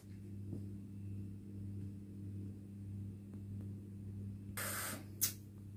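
Steady low electrical hum of room tone, with a brief burst of rustling noise and a click near the end.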